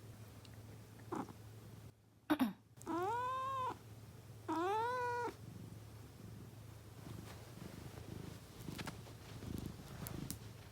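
A person clears their throat once, and a domestic cat answers with two meows, each under a second long and rising then falling in pitch, with a short gap between them.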